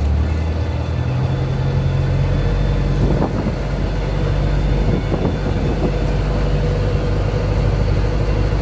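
An engine running steadily, its low hum stepping up in pitch about a second in, with a few light knocks around the middle.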